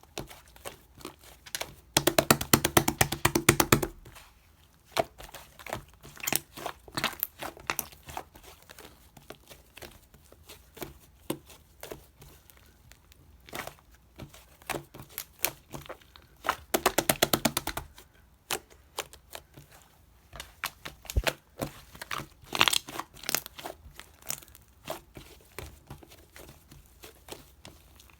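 Cookies-and-cream slime being squished and stretched by hand, making scattered crackles and sticky pops. Twice, at about two seconds in and again near seventeen seconds, it gives a rapid run of popping clicks lasting a second or two.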